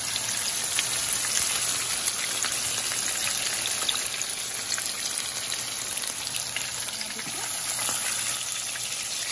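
Chicken chapli kebabs shallow-frying in hot oil in a pan: a steady sizzle with many fine crackles.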